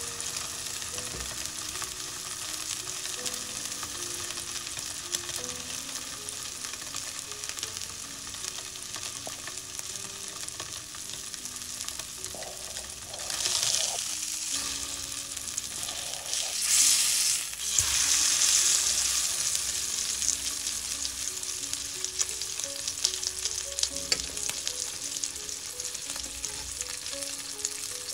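Wagyu chateaubriand steak sizzling in hot oil in a copper frying pan. About halfway through, the sizzle swells louder twice as the steak is turned over with tongs and laid back down, because fresh raw meat meets the hot pan.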